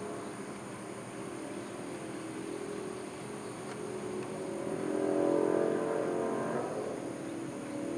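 Distant highway traffic with a motorcycle passing: its engine swells up to a peak about five seconds in, then fades away.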